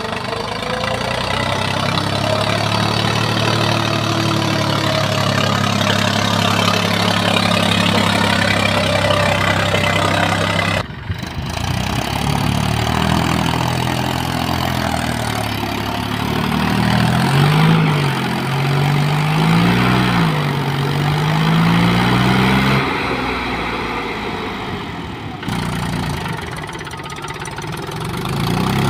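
Tractor diesel engines running. For the first ten seconds or so the engine note is steady. After a sudden break, a tractor engine working loose soil rises and falls in pitch several times as its load changes.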